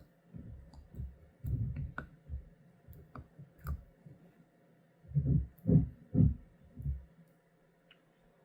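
A spoon working garlic cloves down into honey in a jar, making irregular low thuds and sharp clicks, with a dense run of thuds between about five and seven seconds in.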